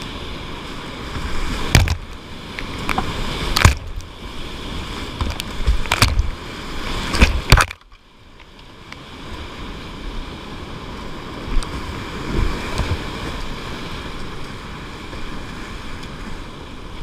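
Whitewater rapid rushing around a kayak, with several sharp, loud splashes in the first half as waves break over the boat and camera. About eight seconds in the sound briefly drops away, muffled, as a wave washes over the camera, and then the steady rush of the rapid comes back.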